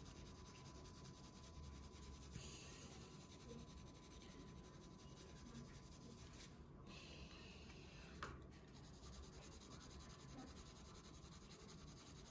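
Faint scratching of a Faber-Castell Polychromos coloured pencil shading back and forth on paper, with one short tick about eight seconds in.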